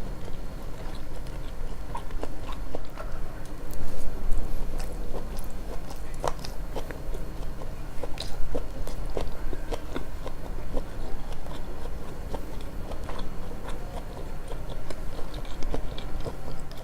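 Close-miked chewing of sushi: wet, irregular mouth clicks and smacks as the food is bitten and chewed.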